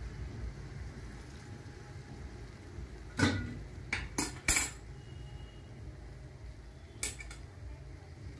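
Metal kitchen utensils clinking: a sharp clank about three seconds in, three quick ones a second later, and one more near seven seconds, over a low steady rumble.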